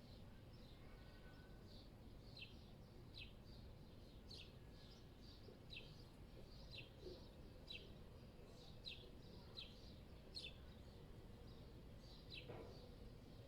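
Birds chirping in a faint city ambience: a run of short, downward-sliding chirps about once a second over a low, steady background rumble.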